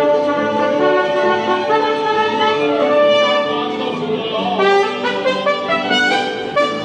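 Instrumental music with held notes and a moving melody line.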